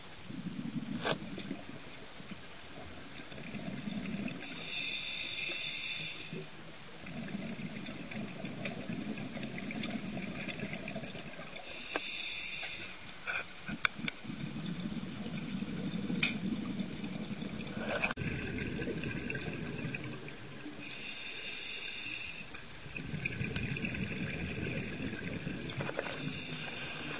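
Scuba diver breathing underwater through a regulator: four slow breaths, each a short hissing inhalation followed by a long bubbling exhalation, with a few sharp clicks between them.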